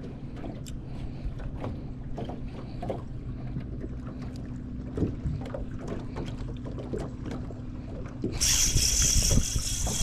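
Tracker fishing boat on the water: a steady low hum with scattered small knocks. Near the end a loud hiss starts suddenly.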